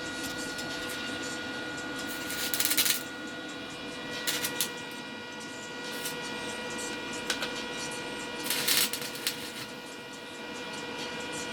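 Short crackling bursts of electric arc welding, about five of them, the longest near the start and near the end, as a hole drilled in a shock-absorber strut to top it up with oil is welded shut. A steady electrical hum with several high steady tones runs underneath.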